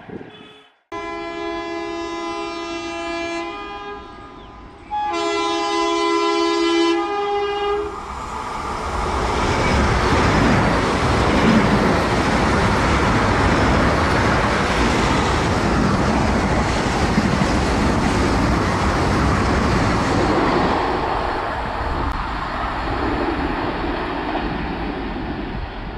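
Indian Railways electric train's two-tone horn sounding twice, each blast about two seconds long. A fast train then rushes past with loud wheel and air noise that slowly eases off near the end.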